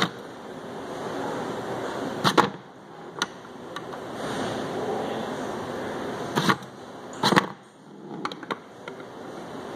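A steel ball rolls across the board of a PLC-controlled tilting maze, making a rumble that swells and fades. Several sharp knocks break the rumble, the loudest about two seconds in and about seven seconds in.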